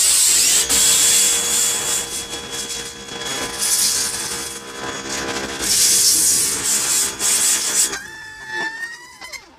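Denzel 2200-watt electric pressure washer running and spraying its high-pressure water jet: a loud hiss with the pump motor's steady hum under it, swelling louder in spells, until the spray stops about eight seconds in.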